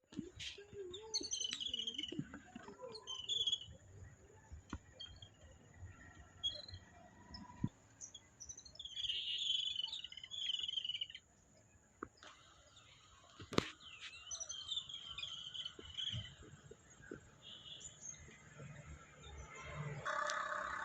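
Small birds chirping in short, scattered bursts of high cheeps, with a few sharp clicks among them.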